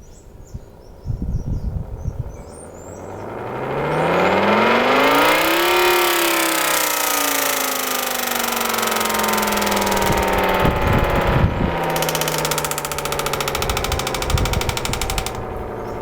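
Reworked electric air raid siren winding up, its pitch rising over about three seconds to a peak, then winding down in a long, slowly falling wail. Its tone sounds like a granulator because the stator ports are unevenly spaced.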